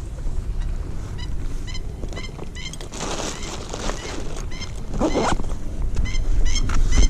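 Birds calling in short, high-pitched notes, often in pairs, repeated about a dozen times over the rumble of wind on the microphone, with a couple of louder swells of noise around the middle.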